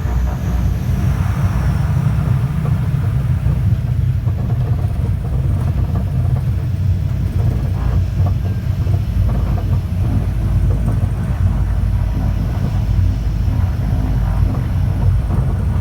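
Steady low rumble of a small propeller aircraft landing on a sand beach runway.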